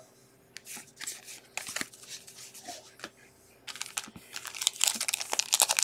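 Trading cards being shuffled and slid against each other with soft, scattered clicks. Then a foil baseball-card pack wrapper crinkles, growing louder and denser over the last two seconds.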